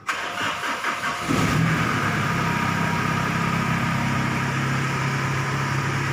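A machine engine comes in suddenly about a second in and then runs steadily at an even, low pitch, over a constant hiss.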